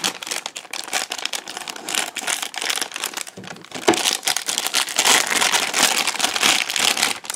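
Plastic blind-bag packet for a Thomas & Friends Minis toy crinkling continuously as it is handled and opened, a dense crackle that stops abruptly near the end.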